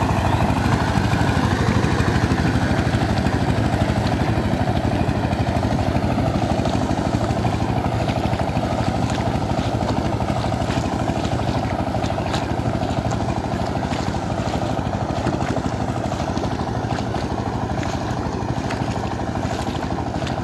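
Two-wheel power tiller's engine running steadily under load as it churns through flooded paddy mud, slowly fading as the tiller moves away. It is on a trial run after repair.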